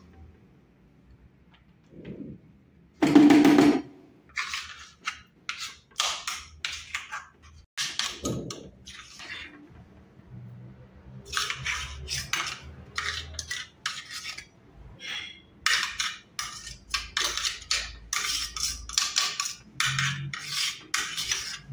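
Metal spoon scraping and clinking against the stainless-steel bowl of an electric grinder as thick ground peanut paste is scooped out, in many short strokes. One louder clunk comes about three seconds in.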